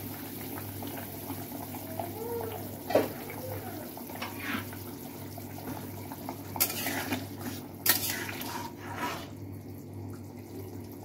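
Liquid poured from a pan into a steel kadai of simmering rice and vegetables, then a metal spatula scraping and stirring against the kadai a few times in the second half.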